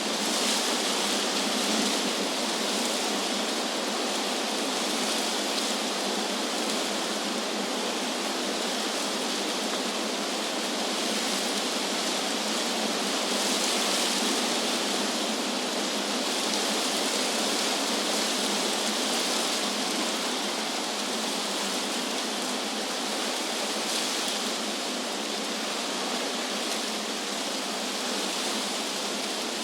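Wind blowing through trees: a steady hiss that swells gently now and then.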